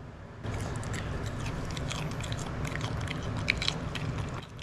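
A Shih Tzu chewing a slice of raw cucumber: crisp, wet crunching that starts about half a second in and stops just before the end.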